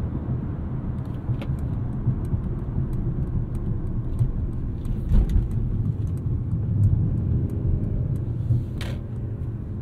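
Cabin sound of a 2022 Mercedes-Benz C300 4MATIC on the move: a steady low rumble of road and tyre noise from its snow tyres, with the 2.0-litre turbocharged four-cylinder running underneath as the car slows. Light ticks sound throughout, and a low thump comes about five seconds in.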